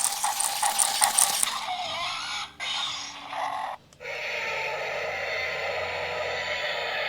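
Remote-control toy velociraptor's small motor and plastic gearbox rattling and clicking quickly as the toy walks, loudest in the first second and a half. From about four seconds in a steady sound takes over.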